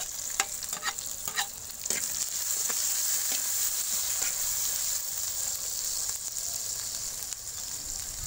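Sliced tomatoes, onions and green chillies sizzling in hot oil in an earthen clay pot, with a few metal clinks and scrapes of a steel plate and slotted spatula near the start as the tomatoes go in. The sizzle swells about two seconds in and then holds steady as the mix is stirred.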